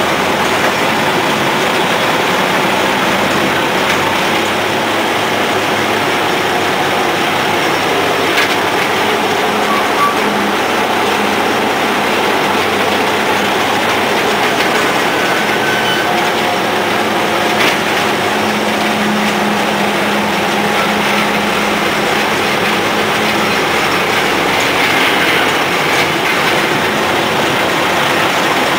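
The 1930 Moore Speedcrane's Cummins diesel engine and machinery running steadily, heard from inside the cab. A steady hum stands out for several seconds in the second half.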